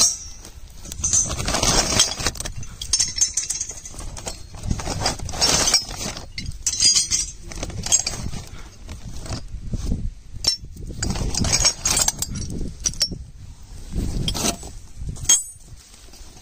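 A woven plastic sack rustling as it is rummaged through, with metal pipe fittings clinking against each other in irregular bursts.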